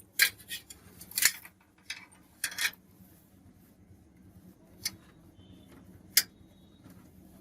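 Scattered sharp clicks and knocks of a SATA power connector and cables being handled and plugged into a desktop hard drive. The clicks come thickest in the first few seconds, then two isolated ones later.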